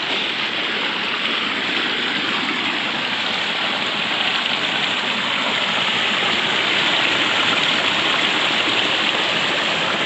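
Small waterfall in a rain-swollen creek: water rushing and splashing steadily.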